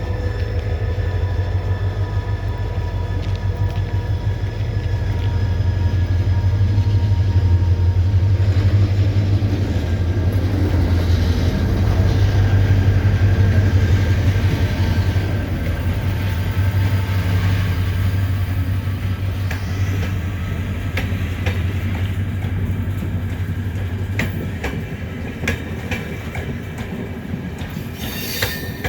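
Diesel locomotive engine running with a loud, steady low hum as a passenger train moves past. From about two-thirds of the way in, the wheels click and clack over the rail joints while the engine sound slowly fades.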